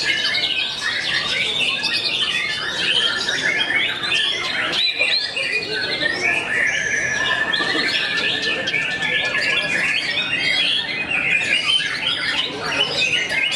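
Several white-rumped shamas (murai batu) singing at once: a dense, continuous chorus of many short overlapping whistled notes. About six and a half seconds in, one long held whistle runs for some three seconds.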